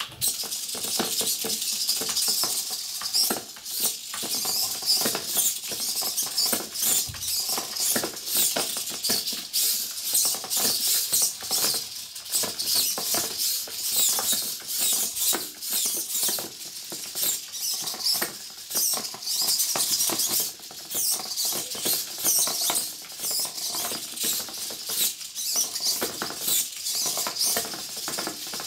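The three small hobby servo motors of a 3D-printed crawling finger robot running in quick, jerky bursts, with the robot's plastic parts clicking and scraping over a wooden floor as it crawls. The sound is continuous, busy and scratchy, and starts abruptly from near silence.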